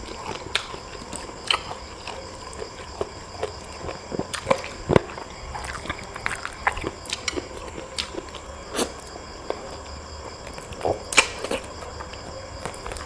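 A person eating close to the microphone: irregular smacks, clicks and crunches of chewing and biting.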